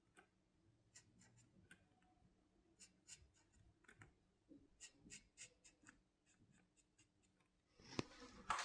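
Black felt-tip pen scratching faintly on paper in short, irregular strokes while inking a drawing's outline. Near the end comes a louder rustle as the drawing hand lifts away from the paper.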